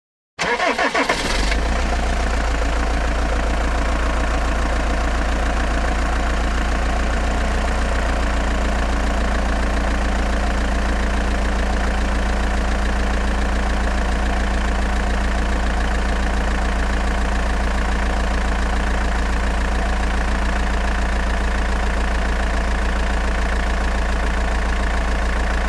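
An engine starting abruptly and then idling steadily, a deep, even running sound.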